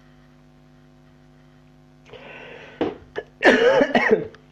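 Steady low electrical hum. About two seconds in comes a breathy noise, then two small clicks as plastic figure parts are handled, and then a short, loud vocal noise from a man that is not words.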